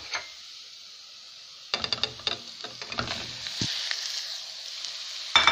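Frying onions sizzling in oil in a non-stick pan; about two seconds in, minced meat is tipped in with a few knocks against the pan, and the sizzling grows louder. There is a loud knock near the end.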